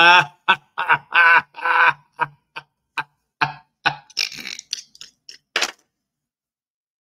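A man laughing hard in a run of short, uneven bursts, loudest at the start and dying away about six seconds in.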